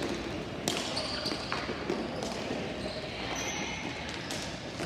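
Ball hockey play: a few sharp knocks of sticks and the ball against the playing surface, over a steady background din.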